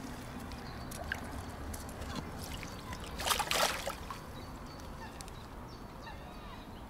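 Common carp splashing in shallow water as it is let out of a landing net, with one short splash about three seconds in.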